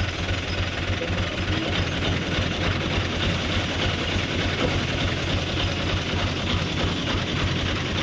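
Engine of road-construction machinery running steadily, with a rapid, even knocking beat.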